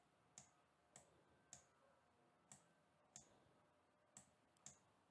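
Near silence broken by faint computer mouse clicks, about seven of them spaced irregularly half a second to a second apart.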